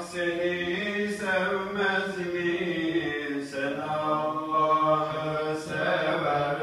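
A man singing a Turkish Islamic hymn (ilahi) unaccompanied, in long held notes that bend and waver in pitch.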